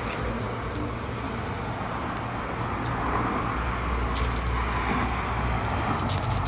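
Road traffic: cars driving past on the street, a steady rushing of tyres and engines that swells a little about three seconds in as a car comes nearer.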